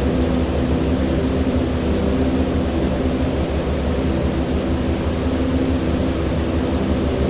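Rushing water: a loud, steady low rumble that does not change.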